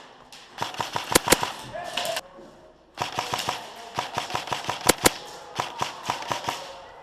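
Airsoft guns firing rapid bursts: two strings of sharp cracks, the first starting about half a second in and the second about three seconds in, with a few much louder shots among them.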